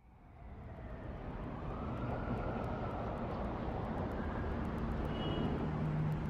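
Outdoor ambience of a large crowd: a steady hubbub and low rumble that fades in from silence and builds over the first couple of seconds.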